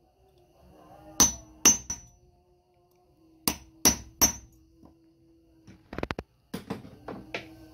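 Metal hammer blows on a metal disc resting on a steel block, each strike ringing briefly: two sets of three sharp blows, then a quick run of lighter taps and a few more strikes near the end.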